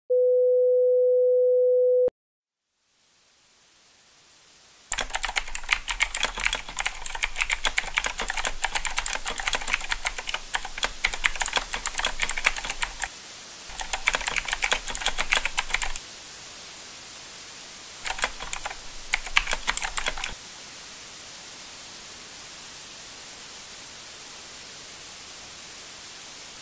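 A steady beep for about two seconds, then a steady hiss with rapid typing on a computer keyboard in three spells, the last one short, each separated by a pause.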